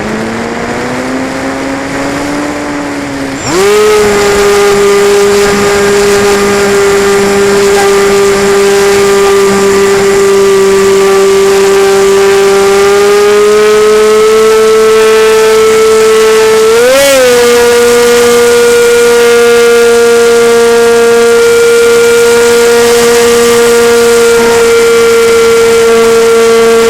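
Radio-controlled model Cessna 185's motor and propeller running in flight as a steady, high-pitched tone. Throttled up sharply about three and a half seconds in, it rises a little in pitch later, with a brief pitch blip in the middle.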